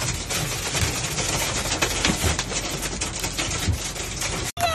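Hail and heavy rain hitting a car's roof and windshield, heard from inside the car: a dense, rapid patter of impacts. It cuts out briefly near the end.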